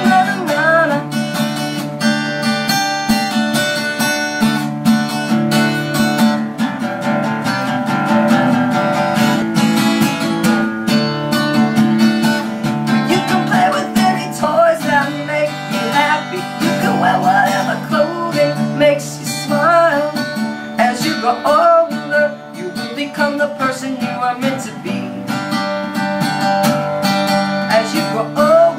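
A woman singing with a strummed acoustic guitar accompaniment.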